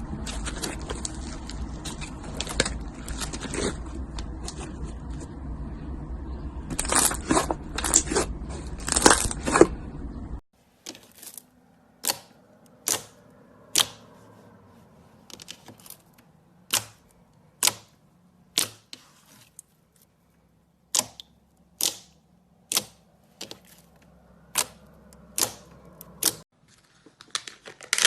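Slime being squeezed and played with by hand: dense crackling over a low rumble, loudest around seven to nine seconds in. After a sudden cut about ten seconds in, sharp pops or clicks follow at about one a second.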